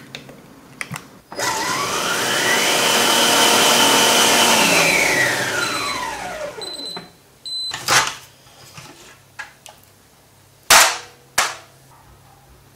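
Moulinex Cuisine Companion food processor puréeing onion, garlic, wine and tomato with its UltraBlade knife at top speed 12: the motor whine rises in pitch, holds, then winds down. A few short beeps follow, then several sharp clicks.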